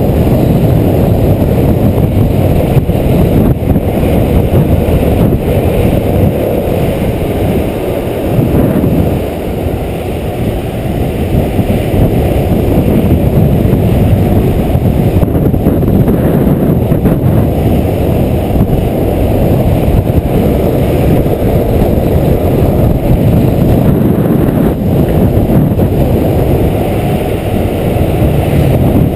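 Loud, steady wind rush buffeting the microphone of a camera moving at downhill longboarding speed, with a low road rumble underneath.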